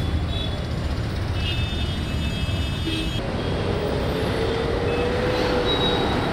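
Heavy road traffic: a steady rumble of trucks and cars passing on a busy road. About halfway through, a long drawn-out tone rises slightly in pitch over the traffic, then fades.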